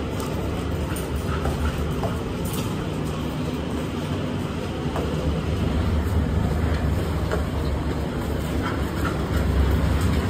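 Steady low rumble of a vehicle, with a few faint clicks over it.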